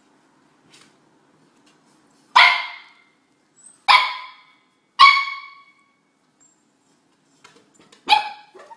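A puppy barking: four short, high barks, three close together and then a pause before the last, each trailing off quickly.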